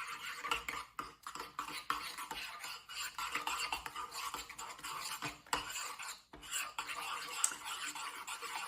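A spoon stirring protein powder into cooked oats in a bowl, scraping and clinking against the bowl over and over, with a few short breaks.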